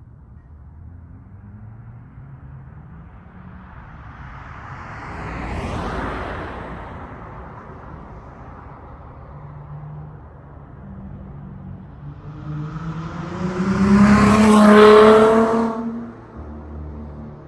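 Dodge Charger SXT's V6 exhaust through Flowmaster Super 10 mufflers on a fly-by: the car accelerates past about fourteen to fifteen seconds in, its exhaust note climbing in pitch and then dropping away. A fainter vehicle pass comes about six seconds in.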